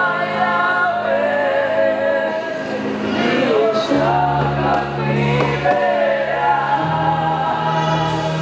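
A choir singing gospel music with a held bass line that changes notes every second or two.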